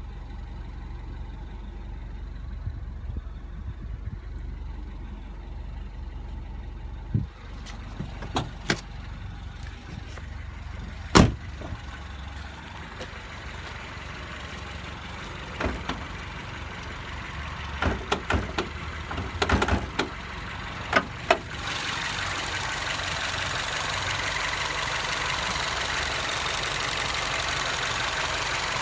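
Mini Cooper S R56 turbocharged four-cylinder engine idling with an odd ticking, which the owner finds worrying and unlike the usual timing-chain 'death rattle'. Several sharp clicks and knocks sound through the middle, the loudest about 11 seconds in, and a louder steady hiss takes over for the last seven seconds.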